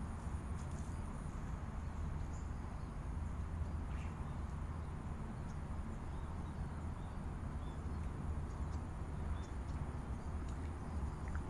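Steady outdoor background: a constant low rumble with a few faint, short high chirps and ticks scattered through it.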